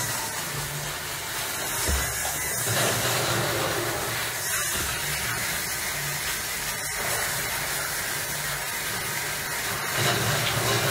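Steady hissing noise with no clear rhythm.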